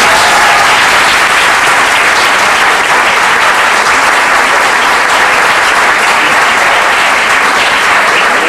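Audience applauding: loud, steady clapping from many hands.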